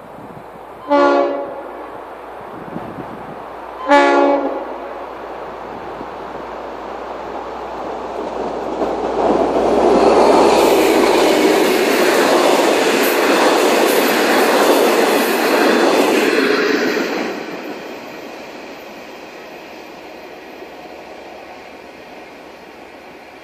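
Two short train horn blasts about three seconds apart. Then a V/Line passenger train comes closer and passes, its carriages' wheels running on the rails loudest for several seconds before fading away.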